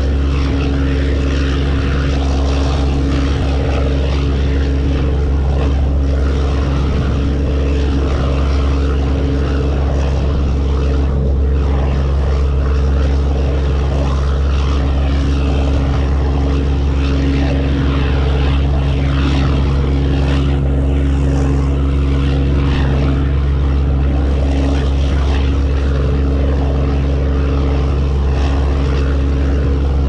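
A ferry's engine running steadily: a deep, unchanging drone with a constant low hum, over the rush of the churning wake.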